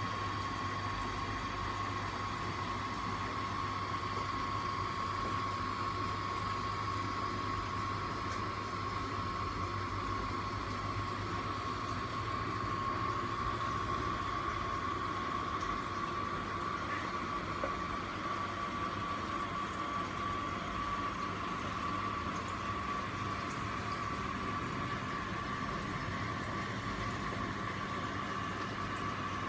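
Reef aquarium equipment running steadily: water pumps and circulating water with a low hum and a constant whining tone.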